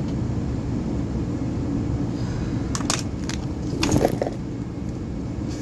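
Metal tools and fittings clicking and clattering against each other several times about three to four seconds in, the loudest knock just after four seconds, over a steady low rumble.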